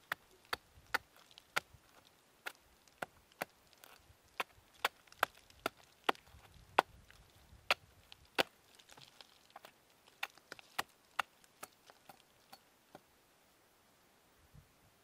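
Sharp, short knocks on wood, irregular at about two or three a second, dying away about two seconds before the end: rotting tree-trunk wood being chipped open.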